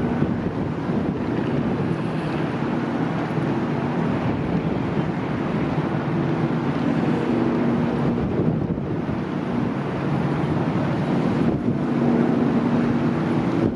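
Strong wind buffeting the microphone over the low, steady hum of a car ferry's engines. The hum swells twice: about halfway through and near the end.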